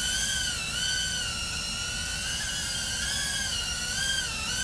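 Small 2-inch FPV quadcopter in flight, its brushless motors and propellers giving a high steady whine. The pitch wavers with throttle and dips briefly about a second in and again near the end.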